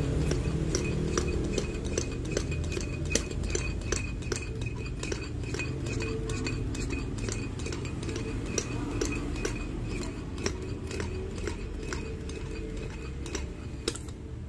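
Irregular small clicks and clinks of a foot pump's metal hose nozzle and frame being handled, over a low rumbling noise.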